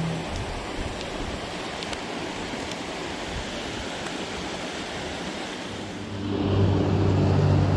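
Steady rush of water pouring over a dam. About six seconds in, a steady low hum joins it and the overall level rises.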